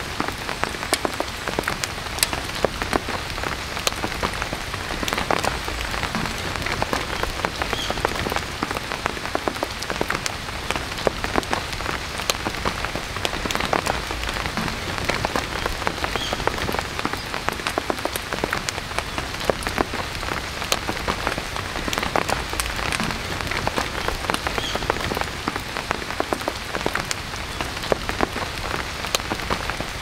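Heavy rain falling steadily on surfaces: a dense, even hiss with many sharp drop ticks all through.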